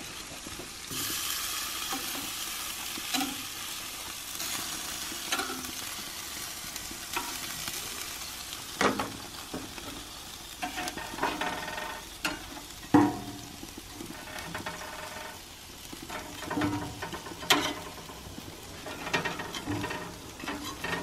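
Beef burger patties sizzling on the grates of a gas grill, with a few sharp knocks and scrapes of a spatula against the grate.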